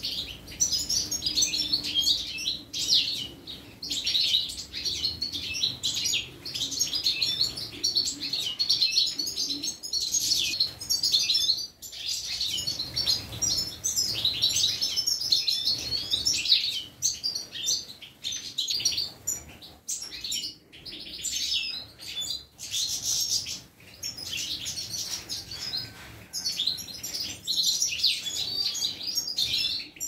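A flock of European goldfinches chattering, a dense run of quick, high, tinkling twitters that carries on with only brief pauses.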